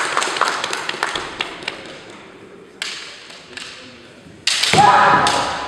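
Kendo bout: sharp clacks of bamboo shinai and stamping feet on a wooden sports-hall floor, each ringing in the hall's echo. A quick run of taps comes first, then two single knocks, then a loud strike with a long kiai shout near the end.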